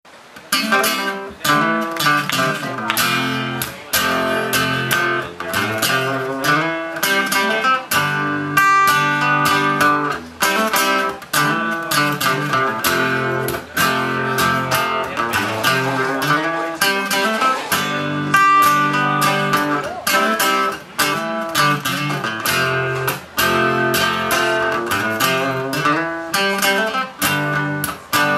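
Two acoustic guitars playing together, strumming chords in a steady rhythm.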